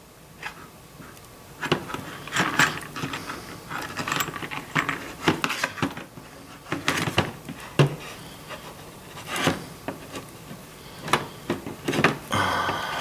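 Pliers and fingers unwinding the coiled steel housing of a throttle cable: irregular small metallic clicks, scrapes and rubs as the wire coil is twisted and stretched off to shorten the housing.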